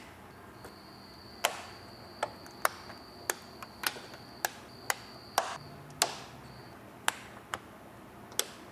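Plastic push clips on a 4Runner's radiator cover being popped out one after another: a run of about fifteen sharp, irregular clicks. A cricket trills on and off behind them.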